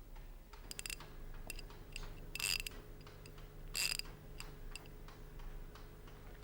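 Mechanical clock ticking, about two sharp metallic ticks a second, some much louder than others.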